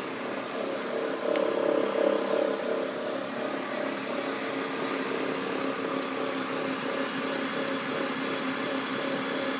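BMW E46 323ci straight-six engine running at idle, briefly louder about one and a half to two and a half seconds in. The engine makes a noise whose source the owner cannot place.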